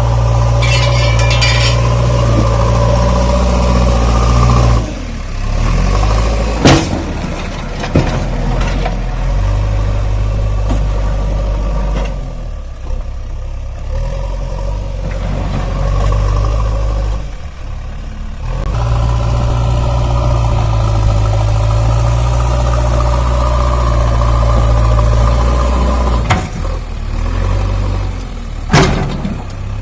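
JCB 3DX backhoe loader's diesel engine running under varying load, its note dropping away twice and building back up. A few sharp knocks stand out, one about seven seconds in, one a second later and one near the end.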